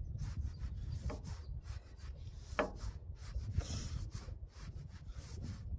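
A knife cutting a tomato on a cutting board, making a run of short, irregular scraping and cutting strokes. Wind rumbles on the microphone underneath.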